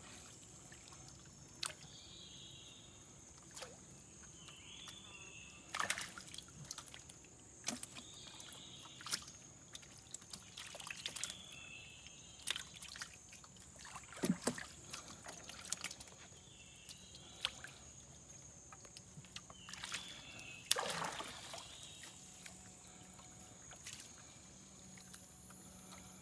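Water sloshing and trickling, with scattered knocks and a few splashes, as a fishing net is worked by hand in the river.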